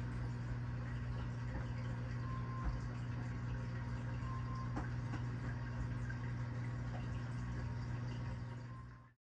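Reef aquarium equipment running: a steady electrical pump hum under bubbling, trickling water. It cuts off suddenly near the end.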